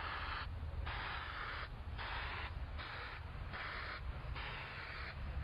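Aerosol spray can of DupliColor CarArt temporary paint spraying in about six short hissing bursts, with brief pauses between strokes as letters are painted on a vehicle panel.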